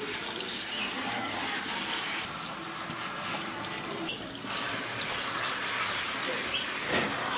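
Water running steadily from a tap during a puppy's bath.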